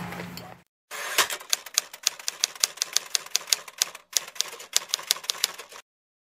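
Typing sound effect: a run of sharp, irregular key clicks, a few per second, with a brief pause about four seconds in, stopping short of the end.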